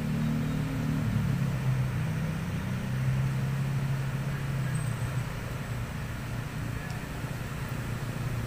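Swollen floodwater rushing past the riverbank in a steady wash, with a low hum under it that fades away about halfway through.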